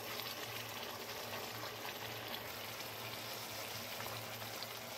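Thick tomato and yogurt masala gravy sizzling gently in a non-stick wok, a quiet, steady frying sound.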